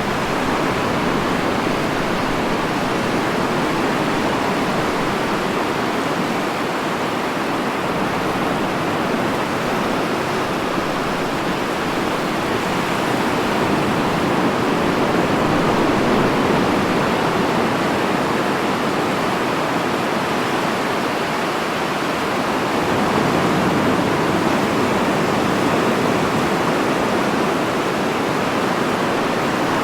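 Rushing water in a continuous, even wash, swelling slightly twice, once around the middle and again later on.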